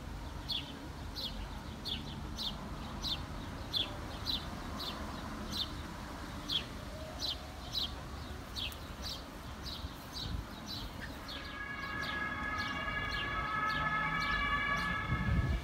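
A bird calling over and over, a short falling chirp about three times a second, over a low outdoor rumble. About eleven seconds in, a steady tone of several pitches held together comes in and grows louder.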